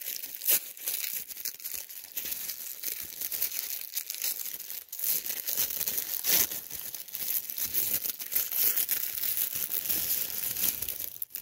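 Packaging crinkling and rustling continuously, with many sharp crackles, as a small package is opened by hand.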